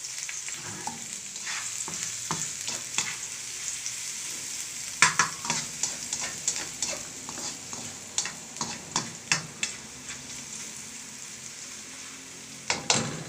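Garlic, onion, curry leaves and chilies sizzling in hot oil in a wok, with a ladle scraping and clacking against the pan as they are stirred. The clacks come in quick runs, sharpest about five seconds in and again near the end.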